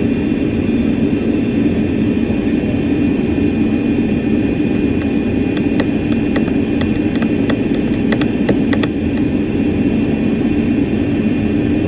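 Steady engine drone and rushing noise of an airliner cabin in flight. A run of light clicks comes in about five seconds in and stops near nine seconds.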